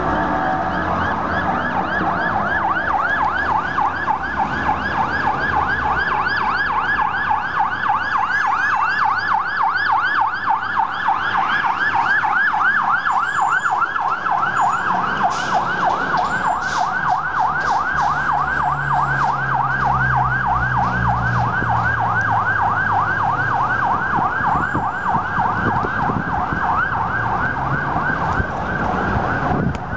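Fire truck siren in a fast yelp, sweeping up and down several times a second without a break, over the sound of traffic.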